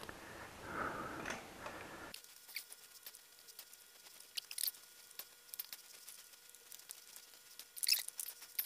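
Rear wheel of a dirt bike being fitted back into the swingarm by hand: soft rustling at first, then scattered light metallic clicks and taps as the wheel, sprocket and axle are handled, with a quick cluster of clicks near the end.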